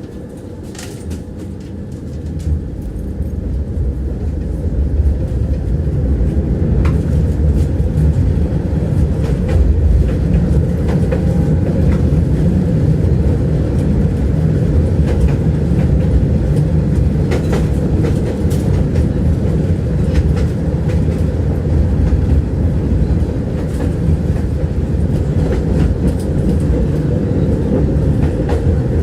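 Tram running on its rails: a steady low rumble of wheels and running gear that grows louder over the first few seconds, then holds steady, with scattered wheel knocks and clicks from the track.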